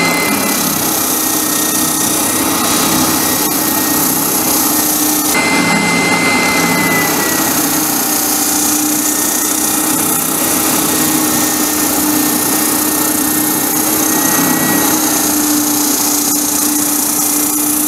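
Spindle sander running steadily while the end of a pine rib is sanded to its angle against the drum. It makes a constant motor hum under an even hiss of abrasive on wood, and the hiss grows a little brighter about five seconds in.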